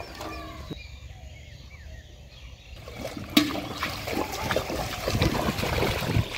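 Shallow muddy water sloshing quietly at first, then a sharp splash a little over three seconds in and repeated splashing as a child runs and wades through the water.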